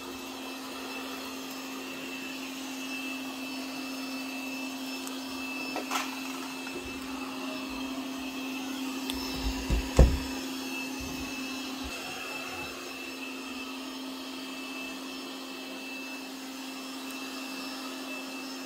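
Lubluelu robot vacuum cleaner running on carpet: a steady motor hum with a high whine. There is a single knock about halfway through as it bumps into a closed door.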